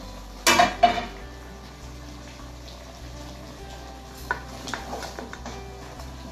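A cooking utensil clattering and scraping against a pot while simmering pork adobo is stirred, with a burst of loud clinks about half a second in, then lighter occasional taps.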